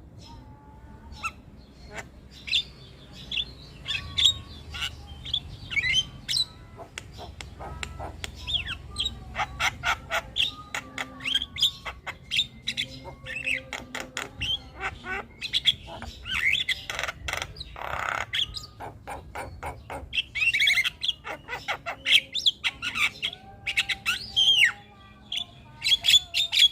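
Javan myna (jalak kebo) in full song: a fast, busy run of whistles, harsh squawks, sliding notes and clicks that goes on without a break and grows denser in the second half.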